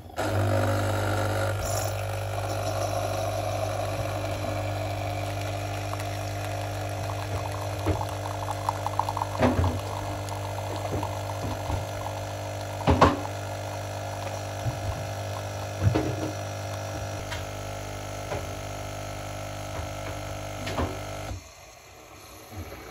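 Single-serve pod coffee machine brewing into a mug: a steady pump hum with water gurgling through, and a few sharp clicks along the way. The pump cuts off shortly before the end.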